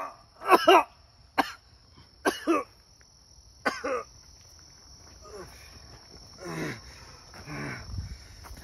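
A person coughing in a series of short, hoarse, voiced bursts, loudest in the first few seconds and weaker after, over steady chirping of insects.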